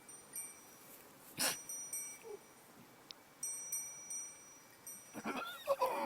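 An animal gives one wavering call near the end, over steady high ringing tones that start and stop. There is a sharp click about a second and a half in.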